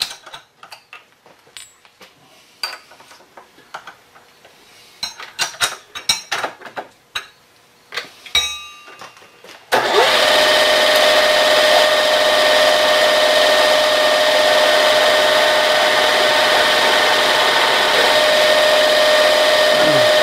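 Scattered clinks and knocks of metal tooling being handled at a vertical mill's spindle. About halfway through, the mill starts and a two-flute end mill bores into an aluminum casting: a loud, steady run with a sustained whine. It winds down just before the end.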